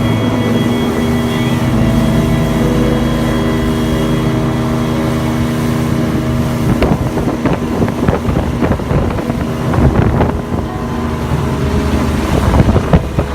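Motorboat engine running steadily underway, with wind on the microphone that turns gusty and heavier about halfway through.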